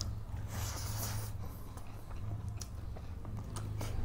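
Two people eating rice by hand from steel plates: chewing and soft mouth sounds, with scattered light clicks and rustles as fingers work the food. A steady low hum runs underneath.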